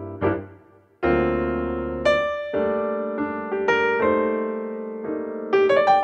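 Background piano music: single notes and chords that ring and fade, with a brief break just before a new chord about a second in.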